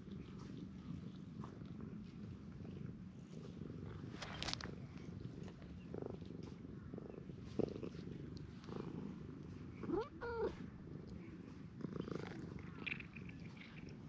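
Domestic cat purring steadily while being petted, with a few soft knocks and one short pitched call about ten seconds in.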